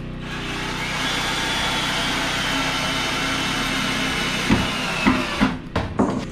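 A power tool runs steadily for about four seconds, its whine sinking slightly, then stops, followed by about five sharp knocks on wood in quick succession.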